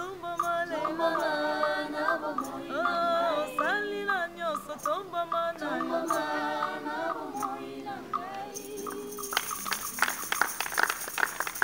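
Church choir of several voices singing a hymn in harmony. About nine seconds in the singing stops and the group breaks into hand clapping.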